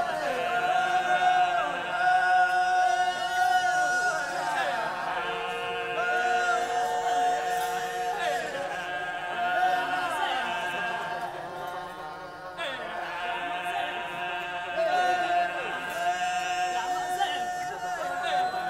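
Wodaabe men singing a geerewol dance song in several voices without instruments: long held notes, with the voices sliding down in pitch between phrases.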